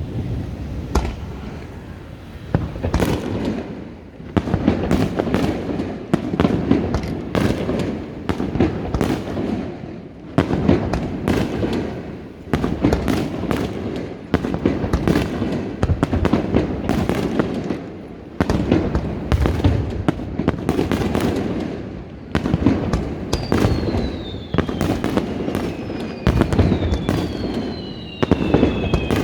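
Fireworks display: a rapid, continuous string of booming shell bursts and crackles. In the last few seconds several whistles fall in pitch.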